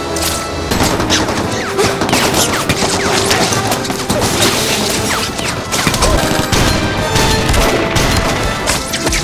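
Action-film soundtrack: music under a rapid run of gunshots and crashes, with dense, sharp impacts throughout.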